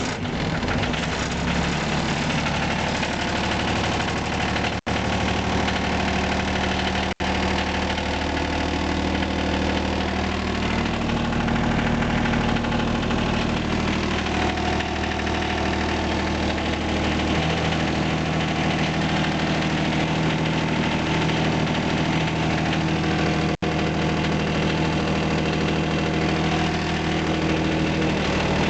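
John Deere 455's three-cylinder diesel engine running steadily just after a cold start in below-zero weather, with three momentary breaks in the sound.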